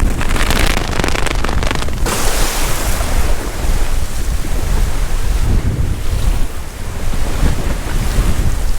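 Storm wind buffeting the microphone with a steady low rumble, over heavy surf rushing onto the beach under the hurricane's winds. A louder wash of hiss comes in the first two seconds.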